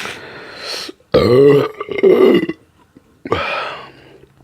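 A woman burping loudly: a long, drawn-out burp starting about a second in, with shorter rougher sounds before and after it.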